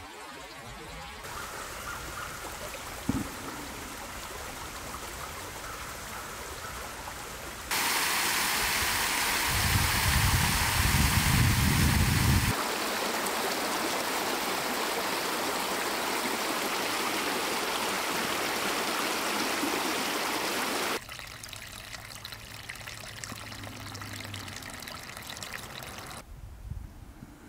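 Running stream water, trickling and rushing over a small cascade, in several cuts that jump abruptly in loudness. The loudest stretch, in the middle, has a low rumble beneath it for a few seconds.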